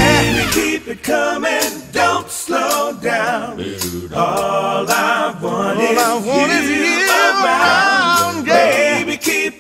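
Background song: voices singing with vibrato, mostly unaccompanied after the low backing drops out about half a second in.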